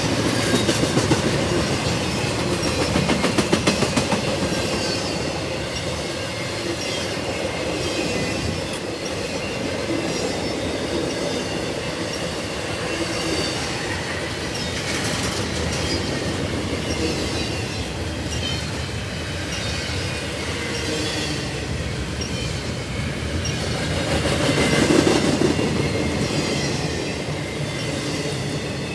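Intermodal freight train cars rolling past, with wheels clicking over the rail joints and a steady high wheel squeal.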